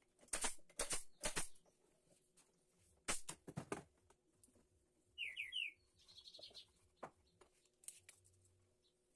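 Pneumatic nail gun firing brads into pine boards: three sharp shots about half a second apart, then two more a second or so later. About five seconds in, a bird chirps three times quickly, then gives a short higher warble.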